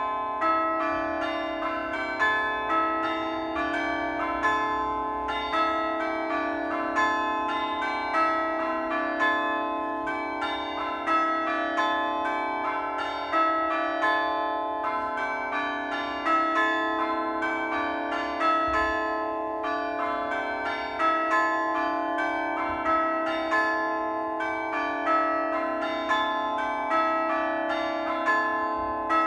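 A ring of church bells being rung one after another in a steady, even sequence, with their overlapping tones ringing on. The pattern comes round with a louder accent about every two seconds.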